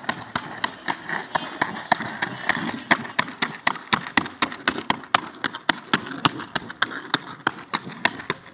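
Skateboard wheels clacking over joints in the paving: a steady run of sharp clicks, about four to five a second.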